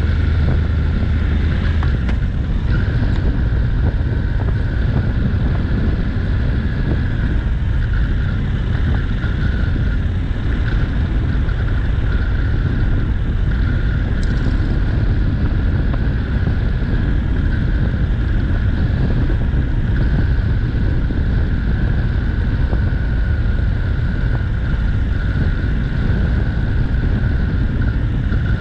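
Honda NC750X's parallel-twin engine running as the motorcycle is ridden, with wind noise on the microphone. A steady low rumble throughout, and the engine note shifts about two seconds in.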